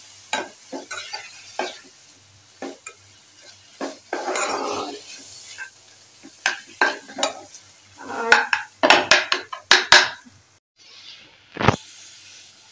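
Metal spoon stirring shredded chicken in an aluminium frying pan, clinking and scraping against the pan over a faint sizzle of frying in ghee. A quick run of strikes comes about two-thirds of the way in, then a single loud knock as the spoon is laid down in the pan.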